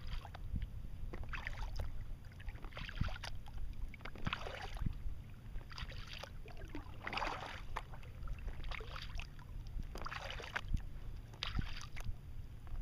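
Kayak paddle blades dipping into calm water in steady alternating strokes, a splashing swish about every one and a half seconds, over a low steady rumble.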